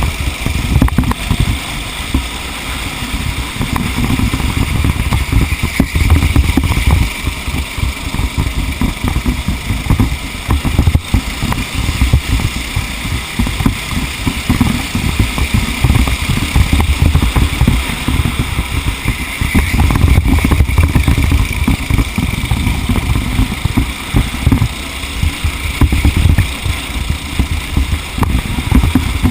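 A vehicle's engine running under way, a continuous heavy rumble that rises and falls in loudness, with rough noise from the ride over it.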